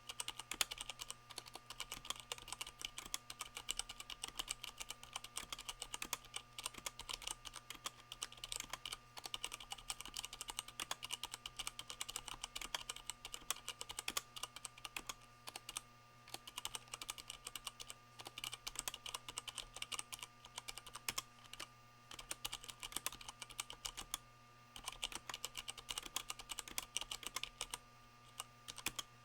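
Continuous typing on a Leopold FC660M mechanical keyboard with Cherry MX Brown switches fitted with O-rings, so the keys bottom out softened: a rapid, steady stream of key clicks with a few brief pauses.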